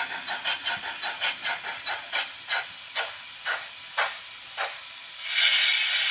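Steam sound effects from a Märklin model steam locomotive's sound module: exhaust chuffs slow from about four a second to about two a second as the locomotive rolls to a stop. About five seconds in, a loud, steady hiss of steam being let off begins.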